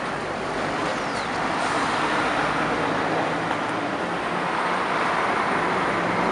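Steady road traffic noise from vehicles passing on the busy road, growing a little louder about two seconds in.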